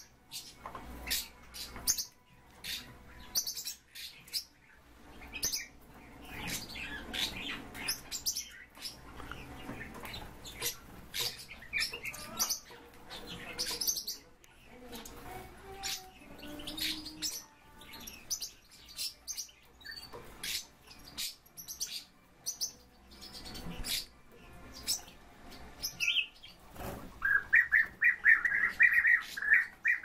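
Small cage birds chirping and twittering, with short sharp ticks scattered throughout; near the end a quick, louder run of repeated chirps.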